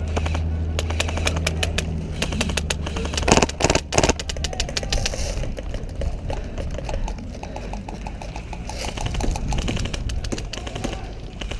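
Airsoft guns firing across the field in fast runs of sharp clicks and snaps, with two louder knocks about three and four seconds in.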